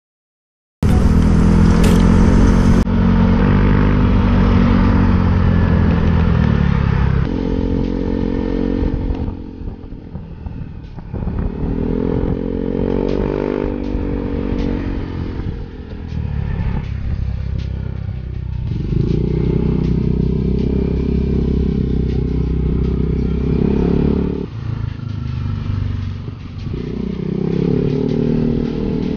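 Yamaha single-cylinder scooter engine under way, cutting in about a second in. Its pitch rises and falls through several pulls of the throttle, over road and wind noise.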